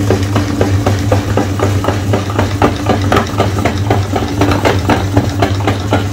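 Metal meat grinder crushing Oreo cookies and pushing the crumbs out through its plate: dense, irregular crunching crackles over a steady low hum.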